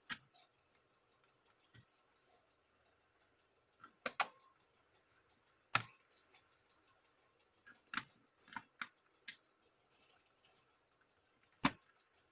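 Laptop reassembly: a screwdriver, small screws and a laptop's plastic case being handled, making about a dozen sharp clicks and taps at irregular spacing.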